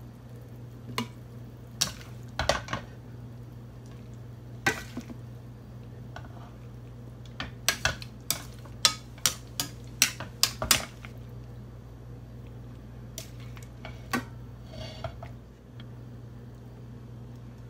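A spatula scraping and knocking against a stainless steel pan as stir-fry is scooped out onto a plate: a string of sharp clinks, coming quickly about halfway through, then stopping near the end.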